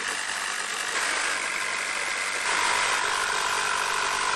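Jigsaw cutting a 1 mm stainless steel sheet: the motor whines steadily as the reciprocating blade saws through the metal. The pitch shifts about a second in, and the sound gets a little louder about two and a half seconds in.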